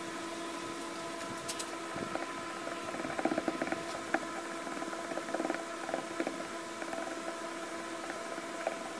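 A stir stick scraping and clicking lightly in a plastic cup of epoxy-soaked nylon rope, starting about two seconds in, over a steady hum.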